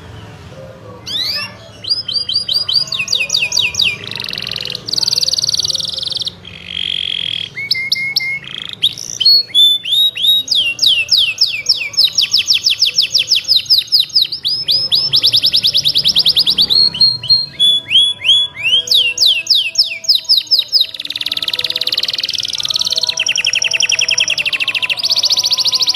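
Domestic canary singing a long, loud song: fast trills of rapidly repeated chirps, changing from one roll to the next, with a few buzzier rolls in between and hardly a pause.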